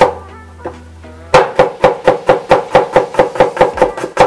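Kitchen knife chopping garlic on a wooden cutting board: after a pause of about a second and a half, rapid even strokes at about five a second, with background music.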